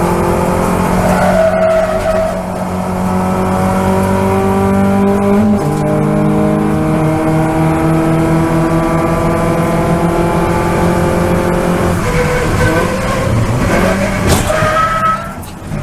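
In-cabin sound of a Toyota Vios race car's four-cylinder engine at full throttle, its pitch climbing steadily through a gear. It drops at an upshift about five and a half seconds in, then climbs again. About twelve seconds in the engine note turns rougher and lower as the throttle comes off, with a brief dip near the end.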